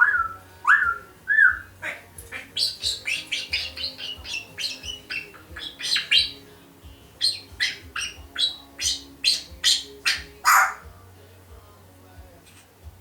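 African grey parrot giving three short rising whistles, then a long rapid run of sharp clicks and chirps, several a second, with one louder squawk near the end before it falls quiet.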